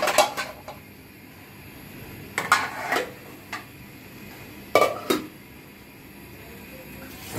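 Stainless steel pots, lids and plates clanking against one another as they are picked up and set down, in three short bursts of clatter with a single clink in between.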